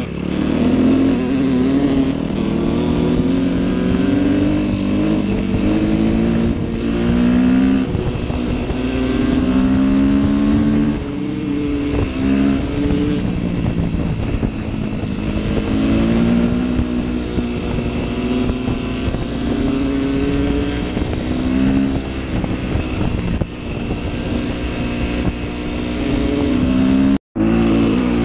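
Suzuki dirt bike's engine revving up and falling back again and again as it is ridden along a gravel track. The sound cuts out for a split second near the end.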